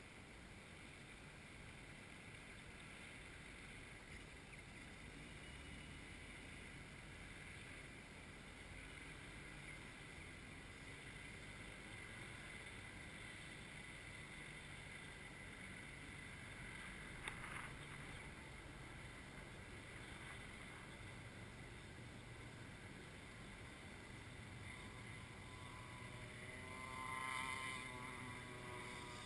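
Faint wind and track ambience, with a sharp click about two thirds of the way through; near the end a shifter kart's two-stroke engine swells up briefly as the kart comes past, its pitch bending.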